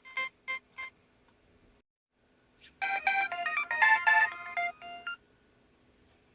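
Nokia 5140 mobile phone playing ringtones: a run of short evenly spaced beeps ends about a second in. After a pause of about two seconds, a short melody of quick overlapping notes plays for about two and a half seconds and stops.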